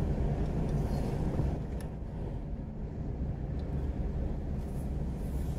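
Steady low rumble of road and engine noise inside a moving car, picked up by the dash cam's microphone.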